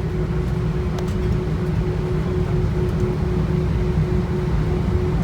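Airbus A319 cabin noise with the engines running: a steady low rumble and a faint pulsing hum.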